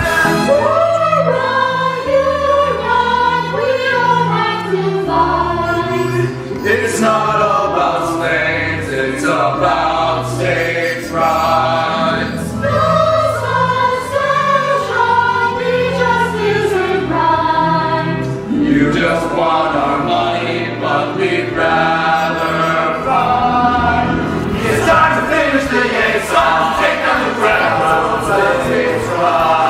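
A mixed group of young men's and women's voices singing together in chorus over a musical accompaniment with a steady bass line.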